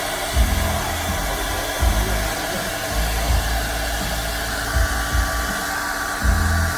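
Steady blowing noise from a small blower motor, with music underneath.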